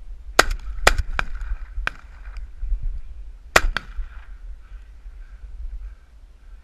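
Shotgun hunt on a rocky slope: a run of sharp cracks and knocks, the two loudest, with a short echo, about half a second in and again about three and a half seconds in. A faint steady high tone lies under them.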